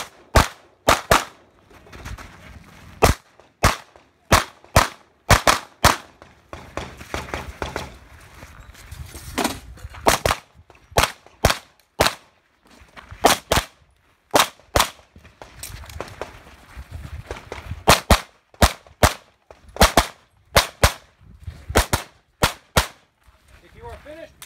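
Rapid pistol fire from an Open-division race gun during a timed stage, shots mostly in quick pairs with short gaps between strings.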